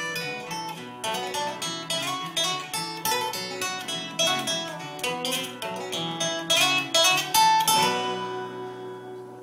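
Acoustic guitar playing the closing instrumental bars of a folk song, strummed chords at a steady pulse, ending on a final chord near the end that rings out and fades.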